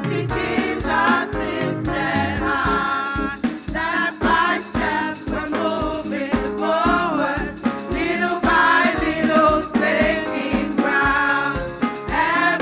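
Gospel worship music: voices singing over a band with a steady drum beat, and a shaker coming in about three seconds in.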